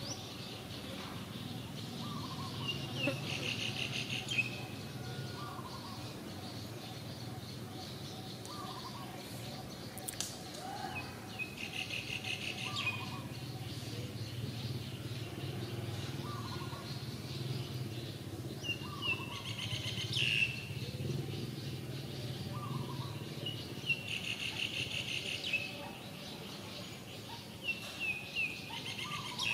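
Wild birds calling: a short note repeated every couple of seconds, with several bursts of fast trilled chirping, over a steady low background hum.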